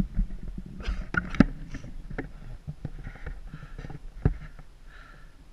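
Irregular knocks and rustling from a body-worn action camera being jostled as the cyclist moves about, over a low wind rumble on the microphone, with a few breaths in between.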